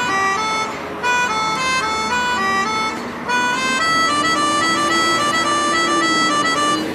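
Music: a bright melody of short, stepped notes that runs without a break.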